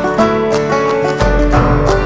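Instrumental background music: quick runs of notes over a held low bass note.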